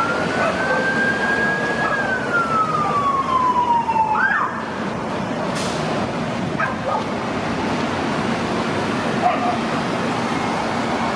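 Electronic siren on a fire department command SUV: one wail that rises and then falls slowly in pitch, ending in a quick chirp about four seconds in, with a couple of short blips about seven seconds in. Steady traffic noise runs underneath as the vehicle drives past.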